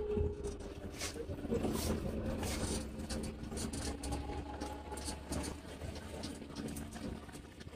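Cabin noise inside a moving coach bus: a steady low engine and road rumble with a faint hum, and a few light clicks and rattles.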